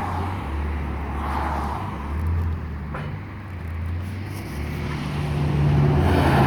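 Peterbilt semi-truck's diesel engine approaching on the road: a low engine drone that steps up and down in pitch several times, growing louder toward the end as the truck comes closer.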